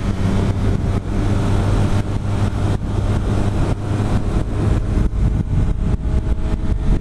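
BMW F800 GS parallel-twin engine running at a steady cruising speed, with wind rushing over the microphone.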